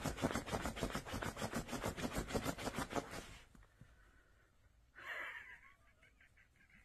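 Dachshund snuffling rapidly with its nose pushed into the bedding, a fast run of breathy sniffs that stops about three seconds in. A brief fainter snuffle follows a little later.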